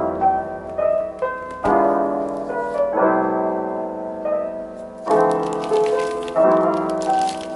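Background piano music, soft chords and a melody with notes changing about every half second. A light, high ticking joins about five seconds in.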